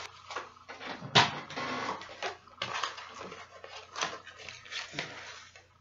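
Plastic packaging of a pack of synthetic braiding hair crinkling and rustling as the hair is pulled out, with irregular sharp crackles, the loudest about a second in.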